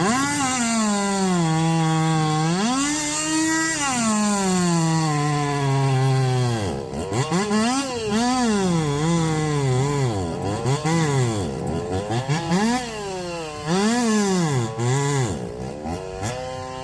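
Two-stroke racing chainsaws at full throttle cutting through logs, the engine pitch sagging under load in the cut and climbing again as it frees up. From about halfway on, it swings up and down about once a second, and it stops near the end.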